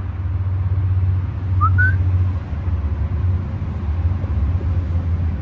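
A steady low rumble, with a short rising two-note whistle about a second and a half in.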